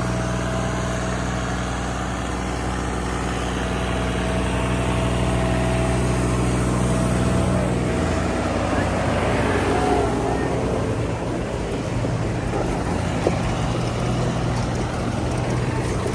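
Diesel tractor engines running, a steady low engine note that changes pitch about halfway through as the load or throttle shifts.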